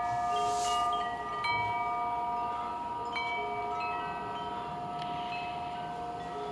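Wind chimes ringing in the wind: several long, slowly fading tones, with new notes struck every second or two.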